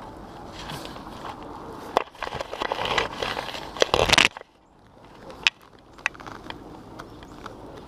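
Scraping and rustling with sharp knocks as a magnet-fishing rope is pulled up hand over hand against a concrete railing. A loud clattering burst lasts about two seconds in the middle, then stops suddenly and is followed by a few separate clicks.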